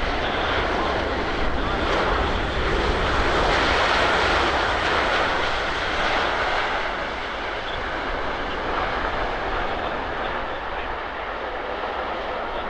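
Jet engine noise of a Boeing 787-8 Dreamliner on approach, a broad rushing roar that swells to its loudest about four seconds in and then slowly fades as the airliner passes.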